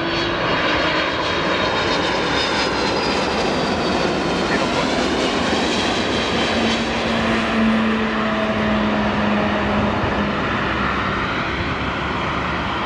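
Boeing 767 twin-engine jet airliner passing low on landing approach: steady jet engine noise with high whining tones that drift slightly lower as it goes by.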